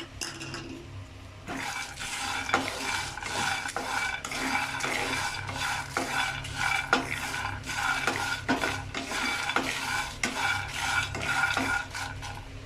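Peanuts, garlic and chillies being stirred as they dry-roast in a pan: repeated scraping and rattling of the stirring utensil and the nuts against the pan, starting about a second and a half in.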